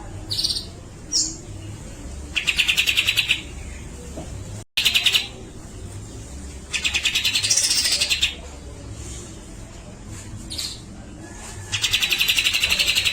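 Grey-cheeked bulbul (cucak jenggot) calling actively: three loud, rapid rattling calls of about a second each, with short chirps and a rising-then-falling whistle in between.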